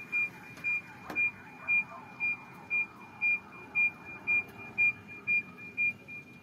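An electronic alarm beeping on one high tone, about two beeps a second, stopping near the end.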